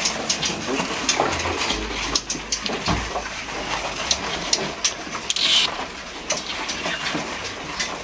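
Hands rustling and knocking against cardboard bird shipping boxes while small birds are taken out, with many short high chirps and clicks and a brief higher squeak about five and a half seconds in.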